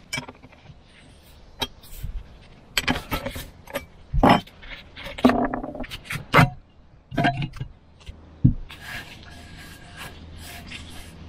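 Metal clinks and knocks of a ring spanner working the end nut of a hydraulic oil filter, the nut and end cap coming off and the spanner being set down on a wooden bench: about a dozen separate sharp knocks, a few with a short ring. Near the end a softer, steady rubbing as a rag wipes the filter canister.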